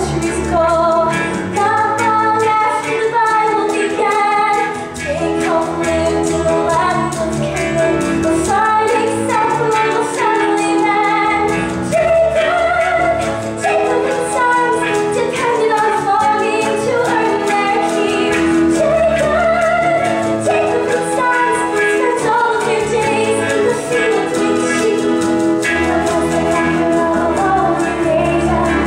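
A large stage chorus, mostly female voices, singing a musical-theatre number, accompanied by a live pit orchestra.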